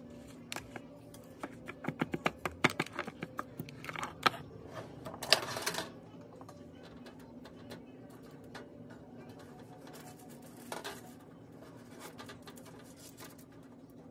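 A metal spatula clicking, tapping and scraping as cookies are lifted off a tray into a plastic container lined with a paper napkin: a quick run of taps in the first few seconds, a short scrape about five seconds in, and another brief one near eleven seconds. A steady low hum runs underneath.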